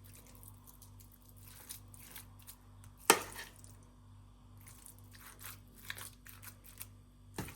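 Food being dished into a pet's bowl by hand: scattered soft handling and scraping noises, with a sharp knock about three seconds in and another just before the end.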